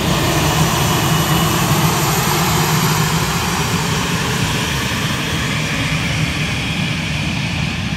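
Jet engines of a Lufthansa Airbus A320-family airliner moving along the runway: a steady rushing jet noise that slowly fades in the last couple of seconds as the plane draws away.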